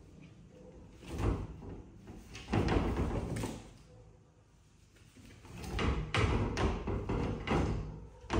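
A cabinet drawer sliding and bumping shut, with a cluster of thuds. Then comes a run of repeated knocks and bangs against the cabinet and its glass doors.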